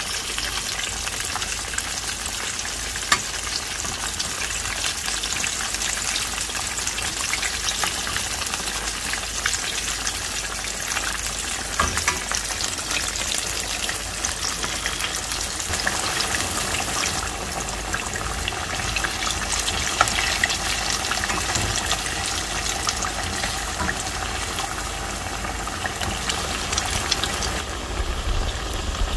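Battered sweet potato strips deep-frying in oil: a steady, dense crackle and sizzle with a louder pop now and then.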